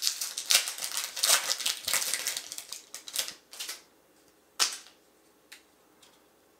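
Trading cards being handled and flipped: a dense run of crisp snaps and rustles for about four seconds, then one sharp snap, then a few faint clicks.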